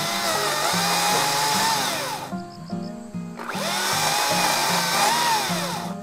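The motor of a handheld power tool revving in two long bursts with a pause of about a second between them, its pitch rising and falling within each burst. Background music with a steady beat plays underneath.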